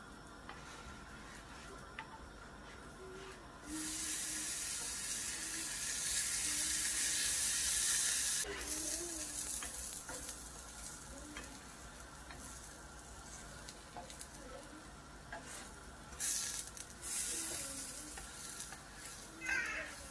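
Chicken wraps sizzling in oil in a frying pan as they are turned with a plastic spatula. The sizzle flares up loudly about four seconds in, holds for several seconds and dies down, then flares again briefly near the three-quarter mark.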